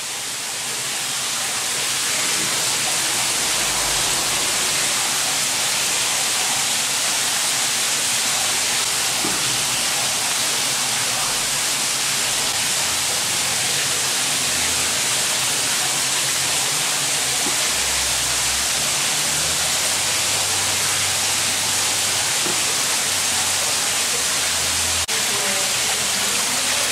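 Mineral spring water of a petrifying fountain cascading and trickling over stepped wooden racks of moulds: a steady, even hiss of falling water.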